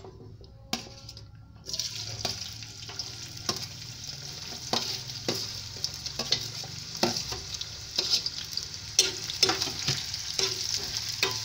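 Sliced onions dropped into hot oil in a non-stick kadhai begin sizzling about two seconds in, with a spatula scraping and knocking against the pan as they are stirred.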